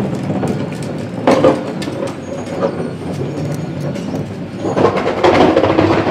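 Die-cast toy front-loader garbage truck handled and pushed across a tile floor: plastic and metal parts rattling and wheels rolling, with many small clicks. There are two louder bursts, one about a second in and a longer one near the end, over a steady low hum.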